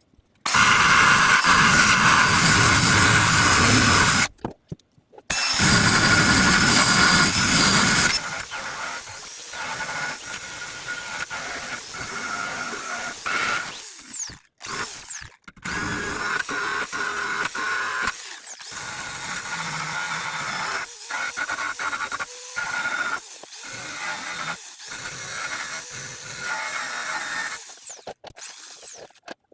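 Electric drill spinning a wire wheel against the steel body panel of a 1988 Ford F-250, stripping paint and dirt. Two loud stretches in the first eight seconds, separated by a short stop, then a quieter, uneven scraping run with several brief breaks.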